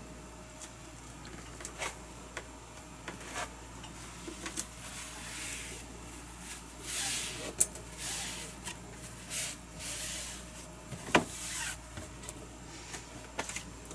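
Hands handling a plastic bag and a plastic cutting board: crinkling rustles in bursts, with scattered light clicks and knocks and a couple of sharper clicks.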